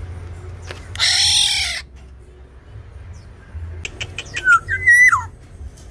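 Black-naped oriole of the Sumbawa race calling: a loud, harsh squawk about a second in, lasting under a second, then near the end a short clear whistle that rises and then falls.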